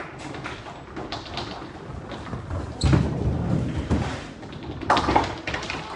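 Nine-pin bowling balls rolling down the lanes and striking pins, with a heavy thud about three seconds in and a sharp clatter about five seconds in.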